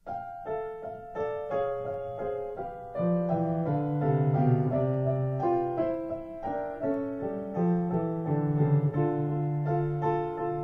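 Piano music: a melody of separate notes starts abruptly, and lower bass notes join about three seconds in.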